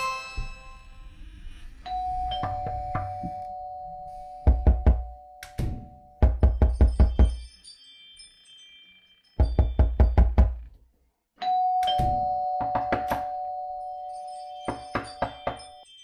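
Doorbell chime sounding a held two-note ding-dong, then loud knocking on a door in quick bursts of five or six knocks. After a short pause comes another burst of knocking, then the two-note chime again, with lighter knocks near the end.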